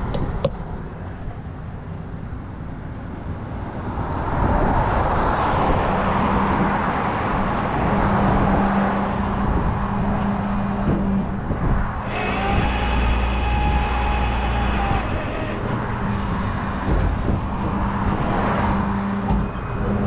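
Rollback tow truck's engine and hydraulic winch running as a pickup is pulled onto the tilted bed: a steady hum that builds about four seconds in, with road traffic going by. Around the middle a louder low rumble with a whine over it lasts a few seconds.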